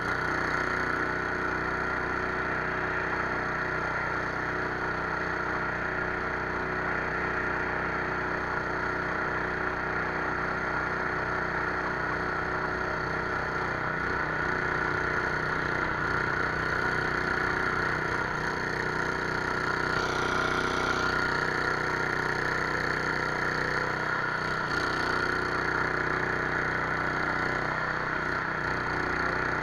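A 15 hp Kopukka 500 longtail boat motor running steadily at an even pitch, pushing an inflatable boat along under way.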